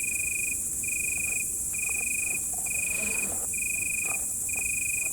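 Cricket chirping in an even rhythm: a high trill about half a second long, repeating about once a second, over a steady high-pitched insect chorus. There are a few faint clicks.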